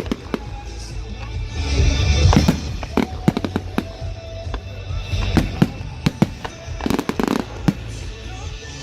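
Fireworks going off in a rapid series of sharp bangs and crackles, heaviest about seven seconds in, with pop music playing underneath.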